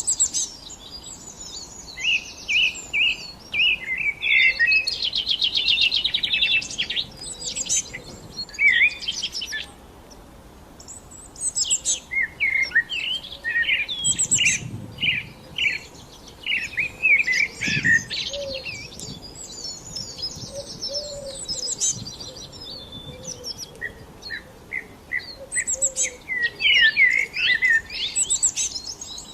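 Songbirds singing and chirping: quick trills, rapid chirp series and short whistled notes, several birds overlapping, with a brief pause about ten seconds in.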